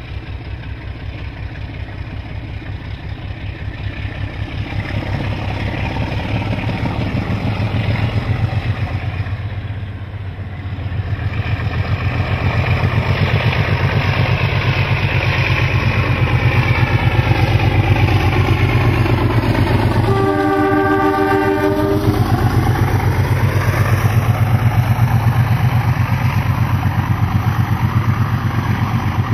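Alco 44 class diesel locomotives passing close under power, their V12 engines running with a steady beat that grows louder as they approach, then the carriages rolling by with the engine sound still heard. About two-thirds of the way through, a locomotive horn sounds once for about two seconds.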